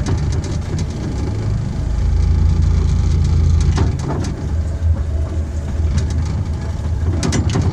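Miniature railway locomotive's engine running steadily as the train rolls along, with a low hum and scattered clicks of the wheels over the rails and points.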